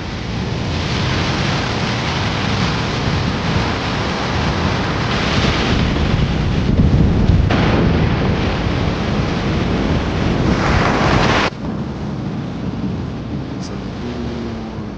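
Loud, steady rush of falling water from a waterfall, with a deep rumble underneath. It drops off suddenly about eleven and a half seconds in to a quieter, steady rush.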